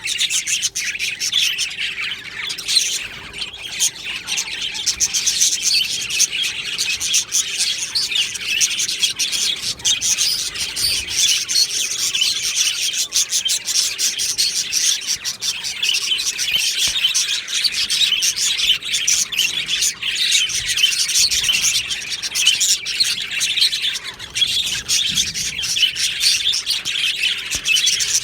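A flock of budgerigars chirping and warbling together, a dense, unbroken chatter of many overlapping calls.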